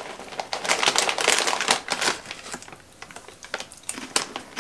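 Plastic snack bag of corn chips crinkling as hands dig in, with crisp crunching of the chips. The crackle is dense at first and thins to scattered clicks in the second half.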